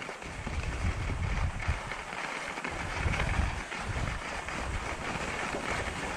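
Skis sliding over groomed, packed snow: a steady scraping hiss. Wind buffets the microphone with an uneven low rumble.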